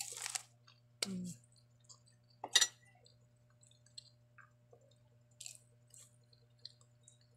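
Handling of a plastic-wrapped cracker pack: a short crinkle of the wrapper at the start, one sharp tap about two and a half seconds in as it is set down on the table, then faint scattered ticks and a light rustle.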